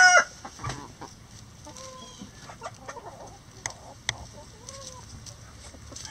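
A rooster's crow cuts off just at the start, then chickens clucking softly and scratching in dry litter, with a couple of sharp clicks partway through.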